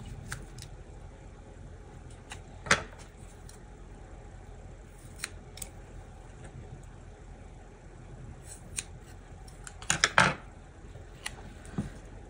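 Small scissors snipping around a paper sticker, with light handling of the sticker sheet. Scattered single sharp snips, the loudest a quick cluster of clicks about ten seconds in.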